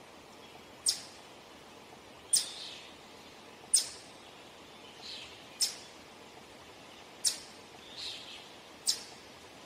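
Eastern chipmunk giving its repeated chip call: six sharp, loud, high chips about one and a half seconds apart, with fainter softer notes between some of them.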